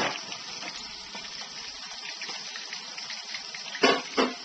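Fish searing in hot frying oil under a metal lid, a steady sizzle with only minor popping now that the oil has settled. Two brief louder sounds near the end.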